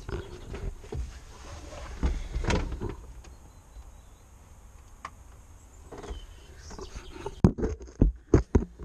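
Handling knocks and clatter inside a tractor cab as a camera is moved and set in place, ending in a quick run of sharp knocks near the end.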